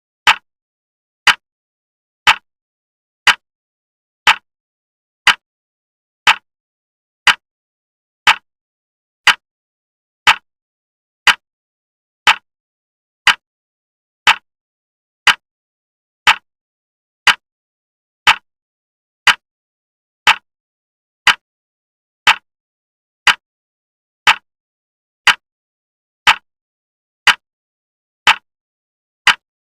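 A clock ticking steadily, one sharp, even tick every second with dead silence between the ticks.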